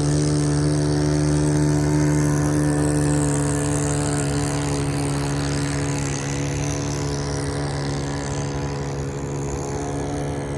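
Small engine of a homemade propane-powered RC boat running steadily at a constant pitch, growing slightly fainter after about three seconds.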